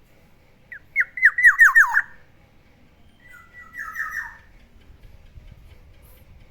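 Black-naped oriole calling: a quick run of about six descending whistled notes, then about two seconds later a harsher, rougher call.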